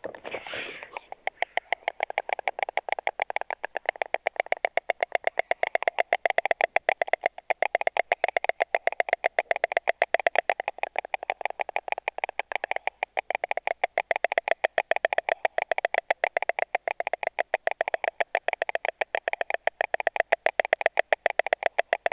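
White storks clattering their bills: a rapid, even run of dry knocks that goes on without a break. Right at the start there is a brief rush of wingbeats as a stork lands on the nest.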